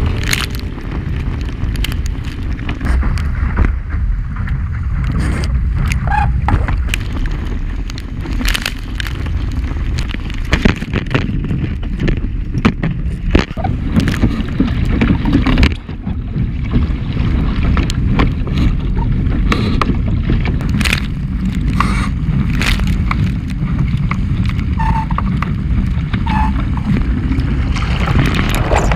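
Wind buffeting the microphone over water rushing and slapping against the hull of a small sailboat under way in gusty wind, with scattered sharp knocks from the boat.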